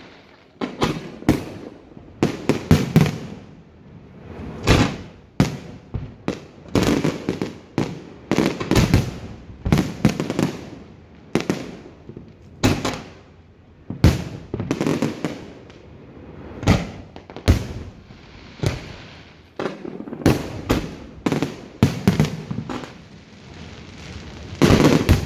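Aerial fireworks bursting in rapid, irregular succession, sharp bangs and crackles, some in quick clusters, each followed by a rumbling echo.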